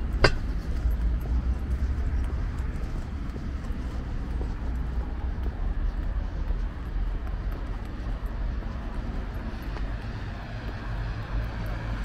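Street traffic noise from a wide city road: a steady low rumble of passing vehicles, with one sharp knock just after the start.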